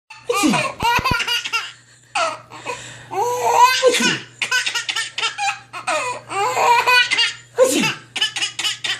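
A baby laughing hard in repeated bursts of giggles and belly laughs, set off by sneezing.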